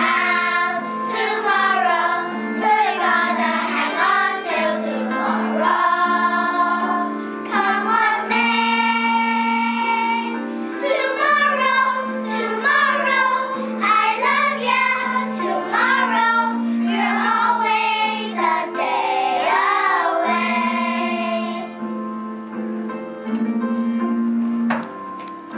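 Children singing a song, with a sustained instrumental accompaniment.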